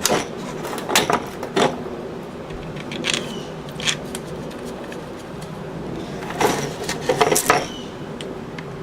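Scattered clicks and knocks of metal parts being handled and fitted back together during reassembly, a few sharp ones close together near the end, over a steady low hum.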